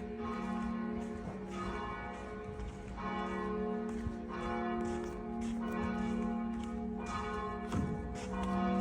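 Church bells ringing, several bells struck one after another about every second, their tones ringing on and overlapping.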